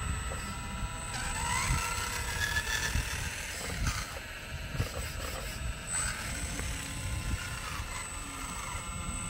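Electric motors of a radio-controlled scale Volvo excavator whining as it digs, swings its upper body and lifts its boom, the whine rising and falling in pitch with each movement, with a few short clicks.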